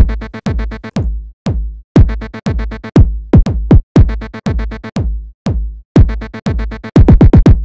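Electronic dance beat: drum-machine kicks that sweep down in pitch, with short pitched snippets of a chopped sample repeated in rapid stutters between them. Near the end the kicks bunch into a quick roll.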